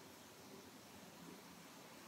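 Near silence: faint, steady room tone.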